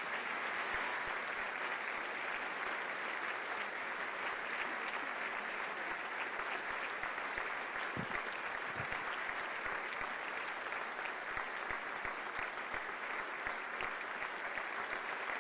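Large audience applauding steadily, a dense, even patter of many hands clapping.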